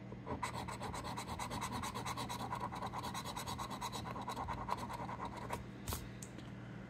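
A coin scraping the latex coating off a paper lottery scratch-off ticket in quick, even back-and-forth strokes. The scratching stops about five and a half seconds in, followed by a couple of light taps.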